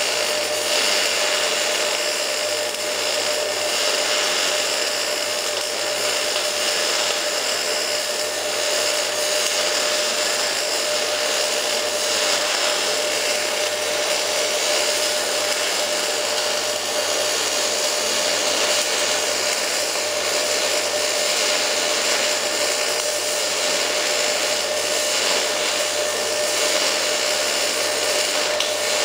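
MIG/MAG welding arc from a Fronius TPSi welder running a root pass on pipe: a steady, continuous hiss with a faint steady tone in it, unbroken throughout.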